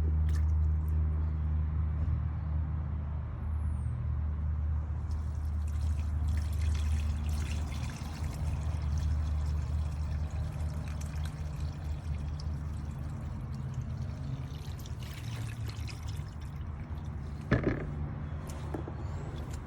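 Cordless wet/dry shop vacuum running with a steady low hum while sucking up water, with sloshing, gurgling noise over the motor. There is a sharp knock near the end.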